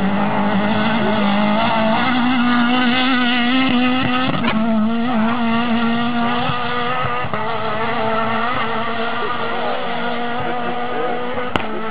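Rally car engine running hard at high revs as the car drives away at speed along a gravel special stage, with a brief break in the engine note about four and a half seconds in.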